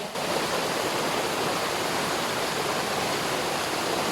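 Water rushing steadily over a small waterfall or cascade on a mountain stream, an even, continuous splashing roar.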